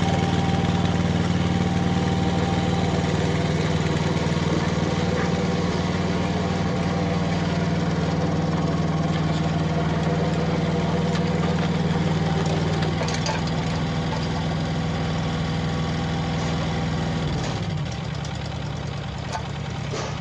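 Yanmar SV08-1 micro excavator's small diesel engine running steadily while the machine slews and works its arm and bucket, with a few light clicks. The engine note drops lower a few seconds before the end.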